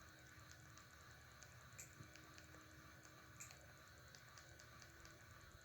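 Near silence with faint, evenly spaced soft ticks and two slightly stronger clicks, typical of remote-control button presses while entering text on an on-screen keyboard.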